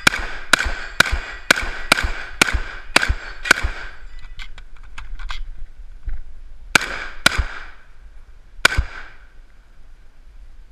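Saiga-12 semi-automatic 12-gauge shotgun firing a rapid string of about eight shots, two a second. After a pause of about three seconds with a few light clicks, three more shots follow.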